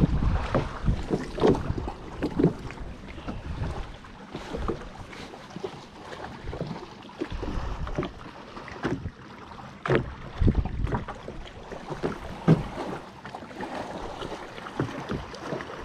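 Small waves slapping against the hull of a small fishing boat in irregular low knocks, with wind buffeting the microphone.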